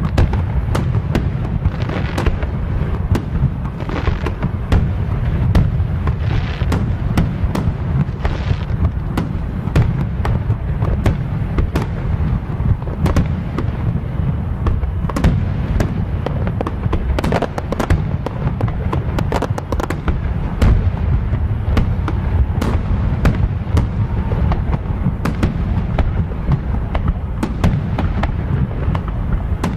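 Fireworks display with many aerial shells bursting in a dense, continuous barrage: a steady low rumble of booms with many sharp cracks, and a few hissing bursts in the first several seconds.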